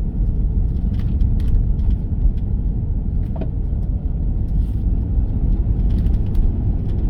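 Engine and road noise inside a moving vehicle's cabin: a steady low rumble with a few faint clicks.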